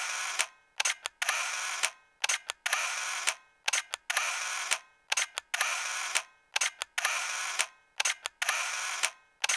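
Camera shutter clicks firing over and over, about two a second in uneven clusters, each click followed by a short whirring tail like a motor-drive wind-on.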